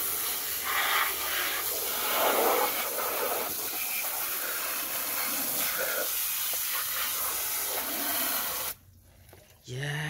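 Water jetting from a handheld spray nozzle onto plastic toy vehicles and wet ground, a steady hiss of spray. It cuts off abruptly near the end.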